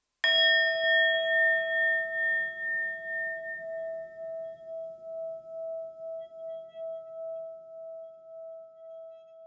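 A resonant metal bell is struck once and rings on with one clear tone and a slow pulsing waver, fading gradually away.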